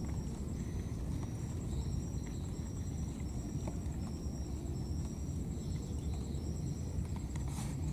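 Outdoor ambience with a steady low rumble. Over it, a short high chirp repeats about twice a second and stops near the end, and a faint, steady high trill runs under it. A brief rustle comes just before the end.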